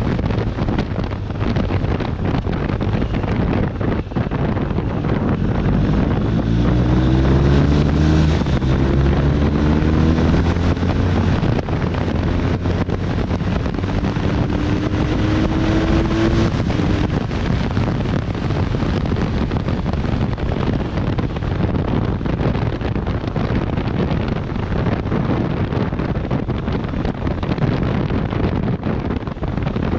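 BMW R1250 RT's boxer twin engine under way, its note climbing in pitch several times near the middle as the bike accelerates, beneath heavy wind noise on the microphone.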